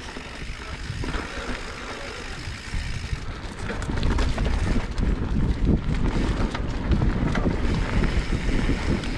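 Mountain bike riding down a loose, dry dirt trail: wind buffets the action camera's microphone while the tyres crunch over the dirt and the bike rattles over bumps. It gets louder about three and a half seconds in.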